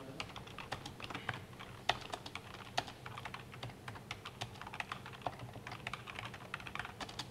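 Computer keyboard typing: irregular, uneven keystrokes throughout, with a couple of sharper clicks about two and three seconds in.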